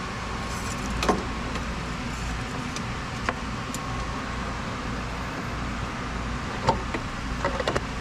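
Steady mechanical hum with a few sharp clicks and knocks: one about a second in, one in the middle, another later, and a quick cluster of them near the end.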